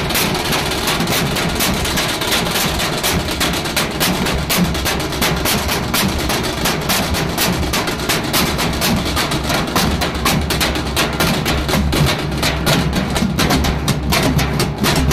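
Nashik dhol troupe drumming: several large barrel drums beaten with sticks, together with smaller slung drums played with thin sticks, in a loud, fast, dense rhythm without a break.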